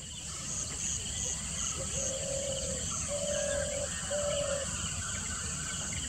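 Outdoor nature ambience: steady insect chirring with short high buzzing pulses. Three low, drawn-out call notes sound about two to four and a half seconds in.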